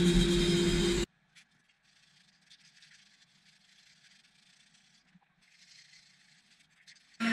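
Makita angle grinder with a sanding disc running steadily against a plywood box, with a steady whine. It stops suddenly about a second in, leaving near silence with faint rustles and a few light ticks.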